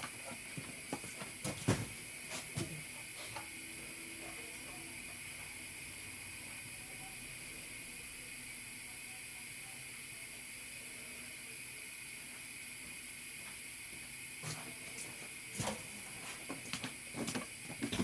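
Steady background hiss, with a few light clicks and taps of hand tools on metal in the first few seconds and again near the end.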